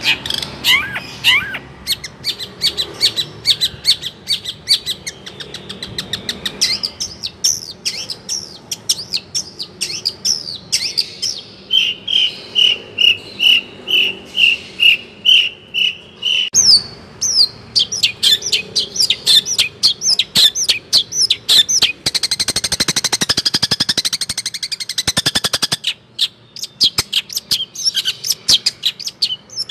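Songbird singing a long, varied song of rapid high chirps, with a run of evenly spaced repeated notes, about two a second, in the middle and a fast buzzy trill about 22 seconds in.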